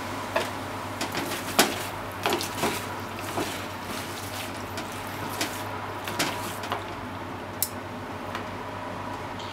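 Pork and vegetable stir-fry sizzling in a frying pan, with irregular clicks and taps of chopsticks striking and scraping the pan as the food is tossed. The tapping stops about three-quarters of the way through, leaving the sizzle.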